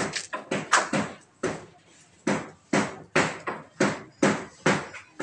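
Repeated hammer blows, about two a second, each sharp strike fading quickly.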